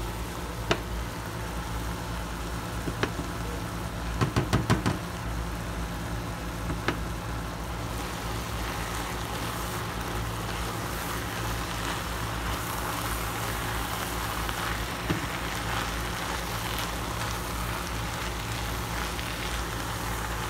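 Ground beef sizzling as it browns in an enamelled pot while it is stirred with a spatula. A quick cluster of knocks comes about four seconds in, with a few single knocks elsewhere, as the spatula strikes the pot.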